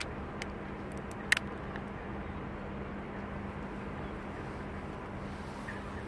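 Steady outdoor background noise with a low, even hum, and one sharp click a little over a second in.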